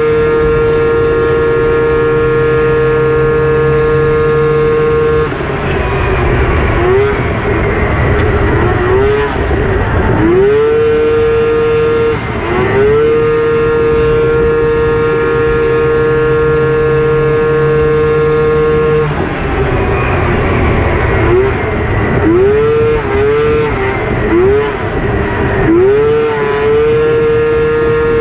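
Polaris two-stroke race snowmobile engine running flat out at a steady high pitch, with the note dropping and climbing back several times as the throttle is eased and reapplied for the corners of the oval.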